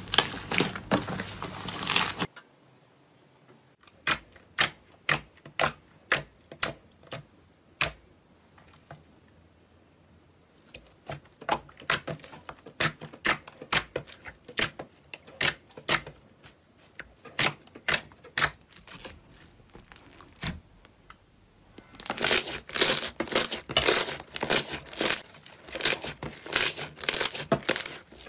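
Slime being handled close to the microphone. A short burst of dense crackling is followed by a run of separate sharp pops, one or two a second, then about six seconds of dense crackling and popping near the end.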